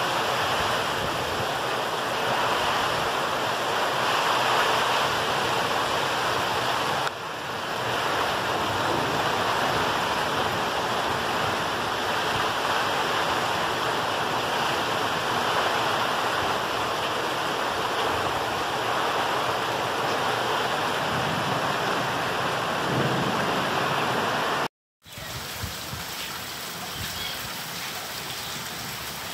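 Rain falling steadily, an even rushing hiss. After a short gap about 25 s in, the rain continues more quietly.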